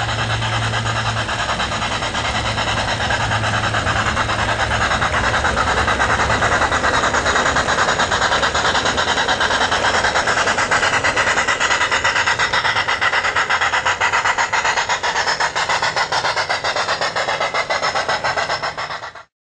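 G-scale garden railway train running on outdoor track, a steady rapid rhythmic clatter and hiss with a low hum at first; it cuts off suddenly near the end.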